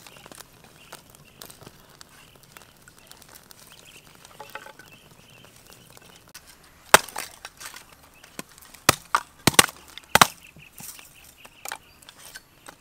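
Quiet handling of split firewood sticks, then a run of sharp, hard knocks from about seven seconds in as lumps of charcoal and pieces of wood are picked up and set down.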